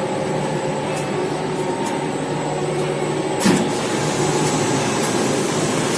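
Commercial laundry machinery running with a steady drone and hum, with a single knock about three and a half seconds in.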